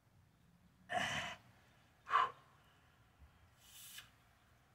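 A man's hard breathing under strain, holding a heavy kettlebell overhead while levering a sledgehammer: a half-second breath about a second in, a short sharp one about two seconds in, and a fainter hissing one near the end.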